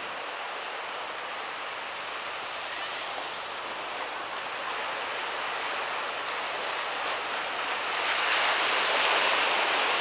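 Sea surf washing onto the shore, a steady rushing hiss that swells louder about eight seconds in.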